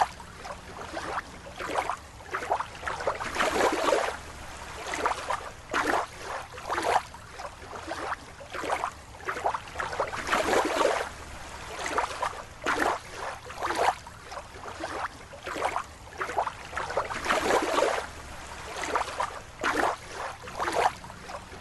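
Water bubbling and swishing in irregular swells that rise and fade every second or so.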